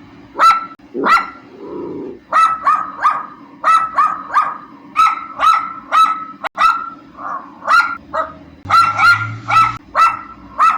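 Dachshund barking repeatedly: sharp barks about every half second, some in quick runs of two or three, over a steady low hum.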